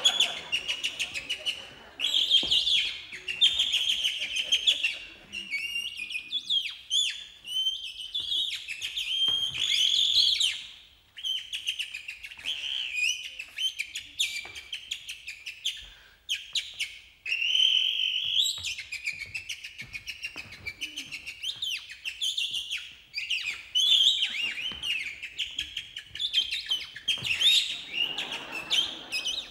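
Two clowns imitating birdsong with their own mouths: a long run of rapid high chirps, trills and warbling whistles, broken by short pauses.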